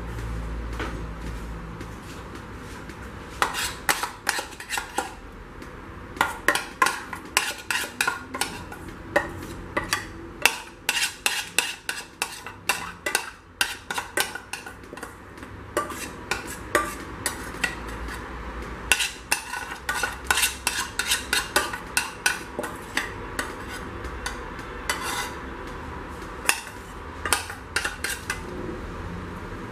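Spoon clinking and scraping against glass dessert bowls in irregular runs of quick sharp clicks, with short pauses between runs.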